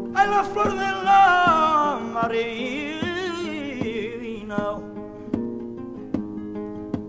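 Flamenco song with acoustic flamenco guitar: a singer holds long, wavering lines that slide down in pitch over plucked guitar chords. The voice stops about four seconds in, and the guitar plays on alone.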